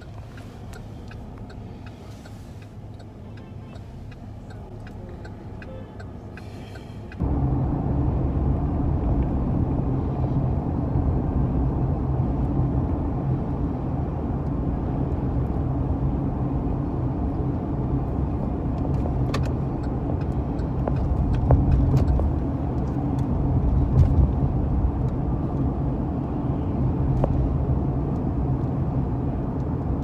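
Steady low rumble of a car's engine and road noise heard inside the cabin while driving. It is fairly quiet at first, then suddenly gets louder about seven seconds in and stays that way, with a few faint clicks.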